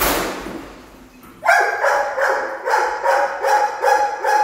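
Dog barking in a quick repeated run, about three barks a second, starting about a second and a half in. A short sharp noise at the very start fades over about a second.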